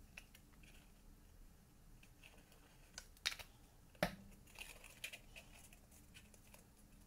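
Faint handling of cardstock and a plastic glue bottle: small rustles and clicks, with two sharp taps a little past three seconds and about four seconds in.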